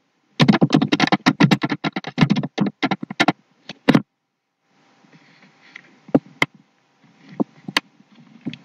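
Computer keyboard typing: a quick run of keystrokes for about three and a half seconds, then a pause and a few separate clicks.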